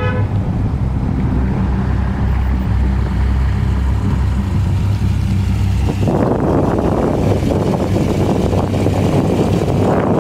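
The 8.3-litre V10 of a 2005 Dodge Ram SRT-10 running with a steady low drone as the truck drives. About six seconds in, the sound becomes closer and noisier.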